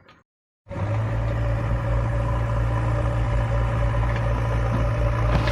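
Heavy diesel engine running steadily with a deep, even hum, starting abruptly about half a second in after a brief silence.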